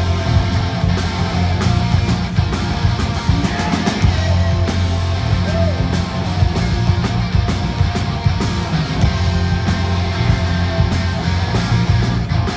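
Rock band playing a grunge song: distorted electric guitars over a heavy bass line and steady drum hits, with a few bent guitar notes.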